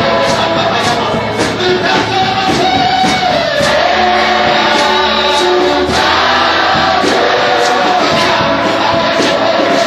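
Gospel worship song: a choir and singers over a full band with drums, played loud and steady.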